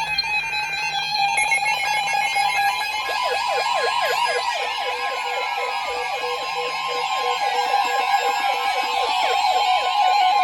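Several NOAA weather radio receivers sounding their alert alarms at once for a severe thunderstorm warning: overlapping electronic tones, beeping at first, with a rapid warbling alarm and a steady high tone joining about three seconds in.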